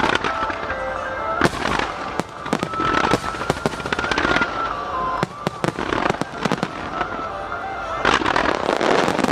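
Aerial fireworks in a rapid barrage: many sharp bursts and crackles, growing densest and loudest about eight seconds in. A melody plays underneath.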